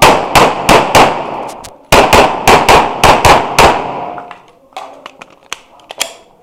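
Semi-automatic pistol fired rapidly in two strings, about four shots and then about seven, roughly a third of a second apart, each shot with a short ringing tail. Fainter clicks and taps follow near the end.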